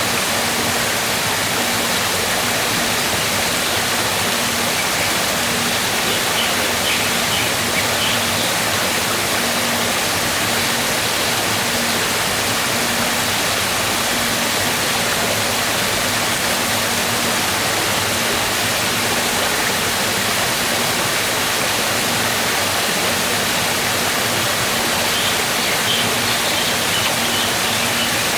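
Waterfall: falling water rushing and splashing as a steady, full noise.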